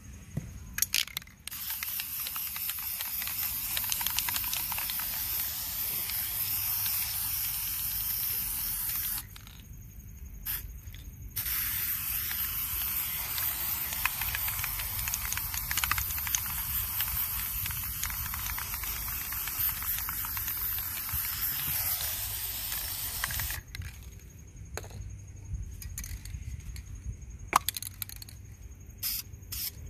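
Aerosol spray paint can spraying: two long hissing sprays, the first about eight seconds and the second about twelve, with a short break between. A few sharp clicks sound before the first spray, in the break, and several more near the end.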